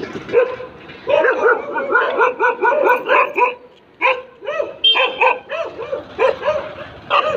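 A dog barking in quick, repeated high-pitched barks, several a second, with a short break about three and a half seconds in before the barking starts again.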